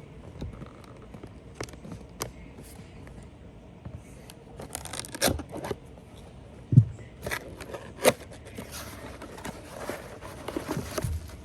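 Cardboard box being opened by hand: scraping and tearing of the packaging, scattered clicks, and two sharper knocks about seven and eight seconds in.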